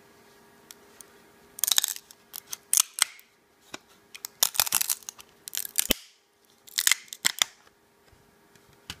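Hands working a freshly 3D-printed PLA wrench and its printed raft: about five clusters of crackling and sharp clicks of hard plastic being handled and flexed.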